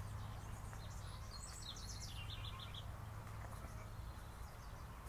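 A bird calling once, a short run of chirps about a second and a half in that steps down in pitch, over a steady low rumble.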